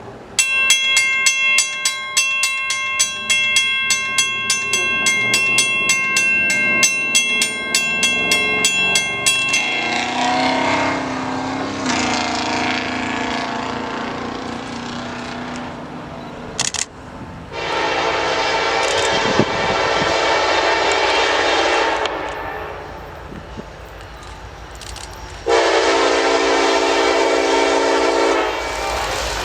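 Grade-crossing bell ringing with about two strikes a second, stopping about a third of the way in. Then a CN freight locomotive's air horn sounds two long blasts as the train approaches, the first about four seconds long.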